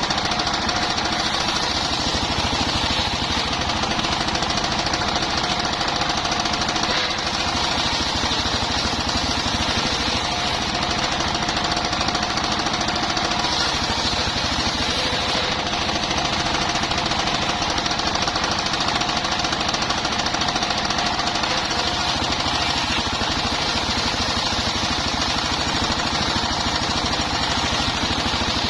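Engine-driven portable circular sawmill running steadily: a fast, even chugging with a steady tone above it, unbroken throughout.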